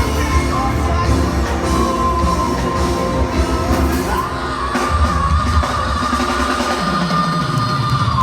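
Live rock band playing with a singer. About halfway through, a long high note rises and is held to the end.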